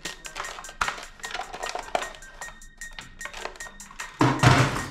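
Hard plastic toy guns clattering and clicking against each other as they are handled in a cardboard box. About four seconds in comes a louder, noisy burst lasting under a second.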